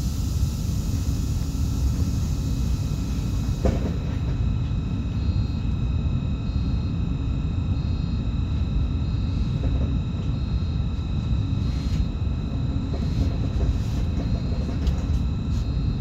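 BM 72 electric multiple unit standing still with its equipment running: a steady low rumble with several steady high tones over it. A high hiss cuts off about four seconds in.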